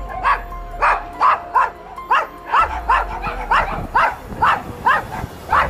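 Dog shut in a pen barking repeatedly, about two to three sharp barks a second.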